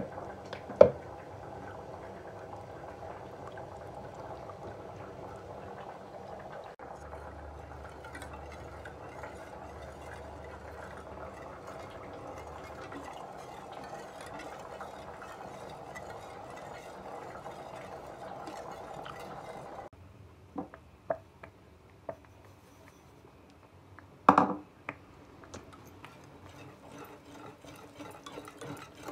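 A wire whisk and wooden spoon stirring a milk and flour mixture in a stainless steel pot, over a steady hum that stops about two-thirds of the way through; later come scattered light clicks and one loud knock of the utensil against the pot.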